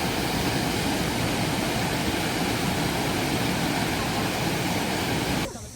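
Steady rush of water. It cuts off suddenly just before the end.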